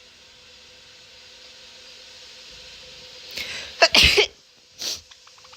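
A person sneezes once, loudly, about four seconds in, with a shorter burst of breath just under a second later.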